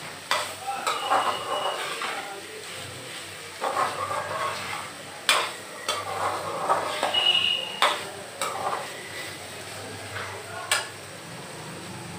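Slotted metal spatula stirring and scraping paneer masala as it fries in a metal kadai, with sharp clanks of the spatula against the pan every second or so. Two brief high squeaks come through, about a second in and again about seven seconds in.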